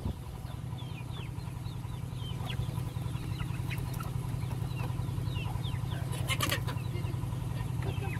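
Young chickens peeping over and over, short falling cheeps, over a steady low hum. A brief crinkle, like the plastic bag in hand, about six seconds in.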